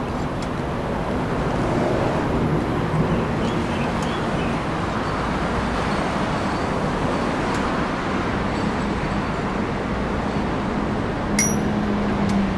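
Steady road traffic noise from a busy multi-lane road, cars and buses passing, with a low steady hum underneath.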